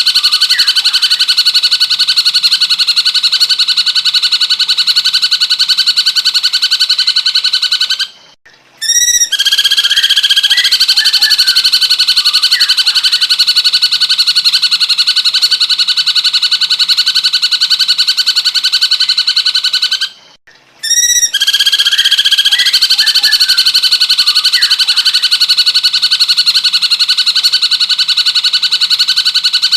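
Looped recording of a cucak cungkok's song, a rapid, continuous chatter held at a steady pitch. It breaks off twice for about a second and comes back each time with a few ringing notes.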